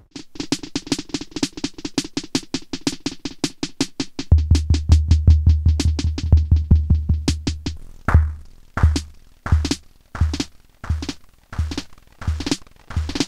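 Electronic drum pattern played through a homemade PT2399 delay: rapid evenly spaced clicking repeats over a steady tone, with a deep bass thump joining about four seconds in. Near eight seconds the delay time is lengthened and the repeats glide down in pitch and fall into a slower, lo-fi beat of about one and a half hits a second.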